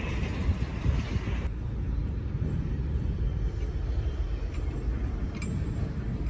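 Outdoor roadside ambience: wind buffeting the microphone as an uneven low rumble, over faint distant road traffic. The sound changes abruptly about a second and a half in, when the higher hiss drops away.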